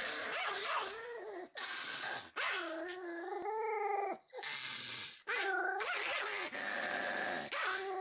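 Pomeranian growling and snarling in a string of bouts, each one to two seconds long, with a wavering pitch and short breaks between them.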